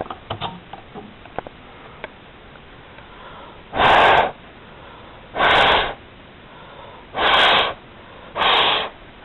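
Fire alarm horn giving four short, raspy blasts of about half a second each, unevenly spaced, after a few faint clicks.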